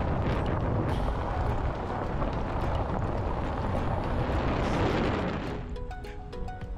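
Wind buffeting an outdoor microphone: a steady rumbling rush of noise, heaviest in the low end. It fades out about five and a half seconds in as soft background music comes in.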